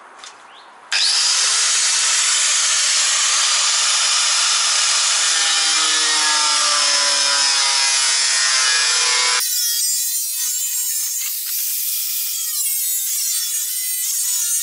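Angle grinder cutting a notch into a black plastic tailgate panel. It starts about a second in as a loud, steady grinding noise with a whine that slowly sinks in pitch as the disc bites. About nine seconds in it changes suddenly to a lighter, wavering whine.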